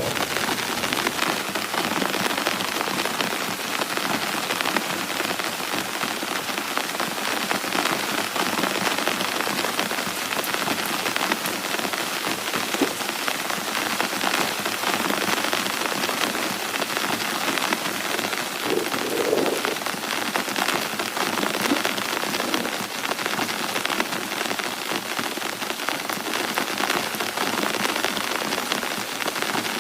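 Steady rain falling, a dense patter of raindrops keeping an even level.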